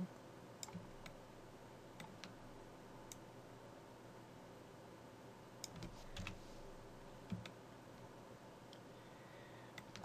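Faint scattered clicks of a computer mouse and keyboard, about ten in all, over a low steady room hum.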